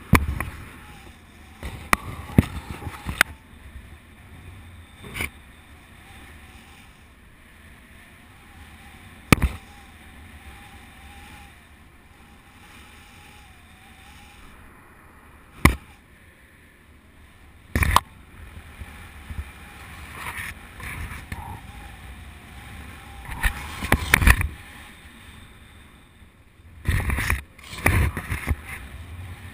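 Wind rushing over a camera microphone in paraglider flight, with sharp loud knocks and buffets every few seconds, clustering near the end. A faint wavering tone runs through the quieter stretches.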